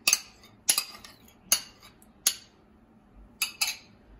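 Metal kitchen tongs clinking against ceramic bowls while yogurt is scraped from one bowl onto chicken pieces: a string of sharp, irregular clinks, some in quick pairs.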